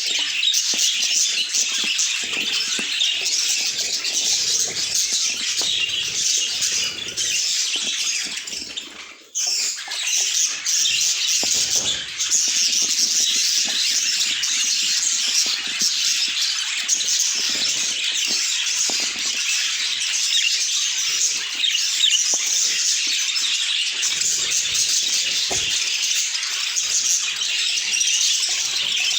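Budgerigars chattering and warbling without pause, in dense high-pitched chirps, with a brief lull about nine seconds in.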